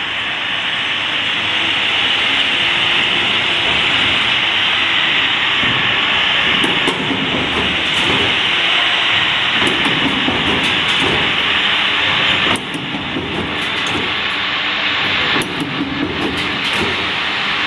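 CNC tube hole punching machine running with a loud, steady hiss, joined by light clicks from about six seconds in; the hiss drops slightly at about twelve seconds.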